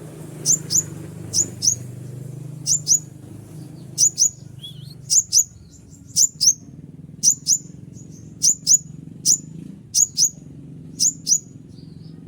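Little spiderhunter (konin) calling: sharp, high double chip notes, the pair repeated roughly once a second, over a low steady hum.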